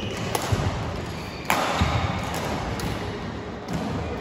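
Badminton rally in a sports hall: sharp racket strikes on the shuttlecock roughly a second or so apart, over low thuds of footwork on the court.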